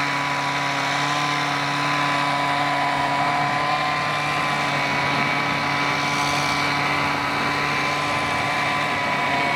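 Small two-stroke engine of a gas-powered tree-trimming tool running at a steady high speed, a constant buzzing drone.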